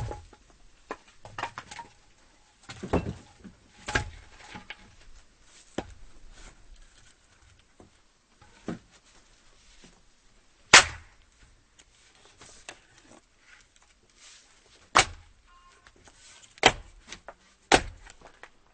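Axe chopping firewood: about ten sharp, irregularly spaced blows into wood, with softer knocks of split pieces in between, the loudest blow just past halfway.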